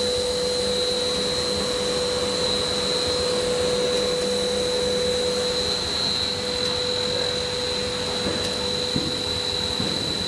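PVC soft-film blowing machine running steadily, with a rush of cooling air and two steady whining tones, one mid-pitched and one high, as the film tube is blown up from the die.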